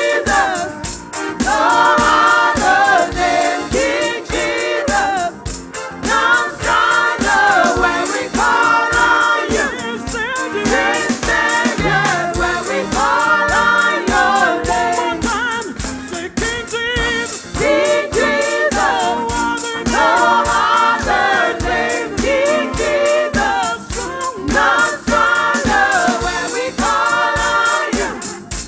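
Choir singing a gospel worship song over a band with a steady drum beat.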